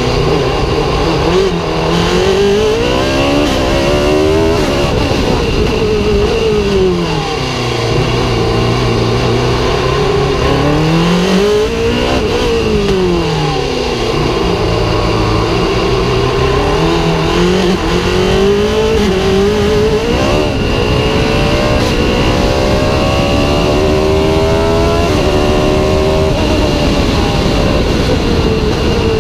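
Sport prototype race car's engine heard from an onboard camera, revving up and down through the gears as it accelerates and brakes between corners. Near the end comes a run of quick upshifts, each a rising climb, before the pitch drops again.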